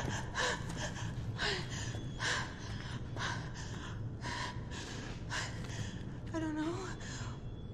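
A frightened woman's heavy, panting breathing: a gasping breath about once a second, with a short whimper near the end and a steady low hum underneath.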